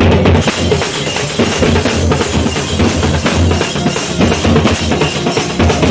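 Large double-headed bass drums beaten with sticks in a fast, dense, driving rhythm, with deep booming strokes.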